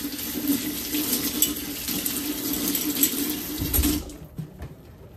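Kitchen faucet running into the sink during dish washing, with a few light clinks of glassware. The water is shut off abruptly about four seconds in, and a few soft low knocks follow.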